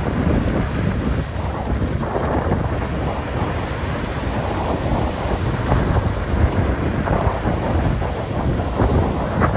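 Strong sea wind buffeting the microphone: a loud, steady rumble that swells and eases with the gusts.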